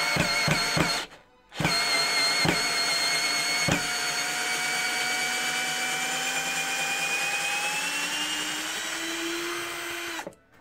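Counterfeit Bosch GSR 18-2-LI Plus 18 V cordless drill-driver driving a long wood screw into a timber block. The motor runs briefly, stops about a second in, then runs on steadily for about eight seconds, with a few sharp clicks in the first few seconds. Its whine rises slightly in pitch before it cuts off.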